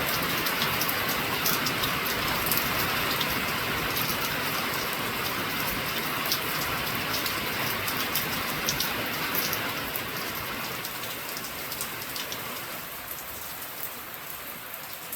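Steady rainfall, with individual drops ticking sharply over an even hiss; it grows quieter over the last few seconds.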